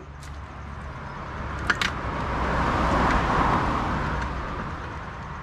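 A passing road vehicle: its tyre and engine noise swells to a peak about three seconds in, then fades away. Two sharp clicks come just under two seconds in.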